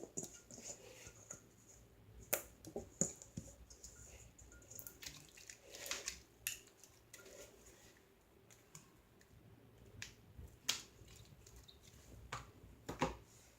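Soft, runny glitter slime being handled and squished, giving faint scattered sticky clicks and pops.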